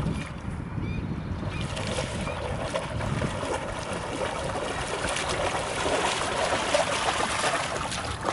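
Terrier wading through shallow pond water, its legs splashing and sloshing in a steady patter that grows louder as it comes closer.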